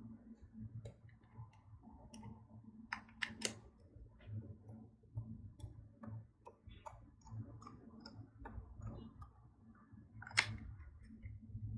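Slime being worked by hand, giving faint, irregular sticky clicks and small pops, with a few sharper snaps about three seconds in and again near ten seconds in.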